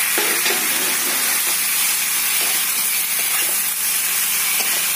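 Potato and eggplant pieces sizzling steadily in hot oil and masala in a kadai, with a few light scrapes of a metal spatula as they are stirred.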